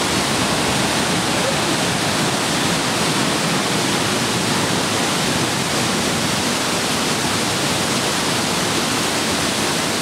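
Smoo Cave's underground waterfall, the Allt Smoo burn, plunging into the cave chamber, heard close up: a loud, steady, unbroken rush of falling water.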